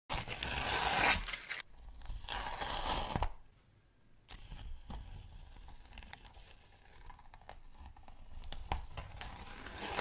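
Paper mask being peeled off a freshly painted acrylic canvas: two long tearing rips in the first three seconds, quieter crackling in between, and another rip near the end.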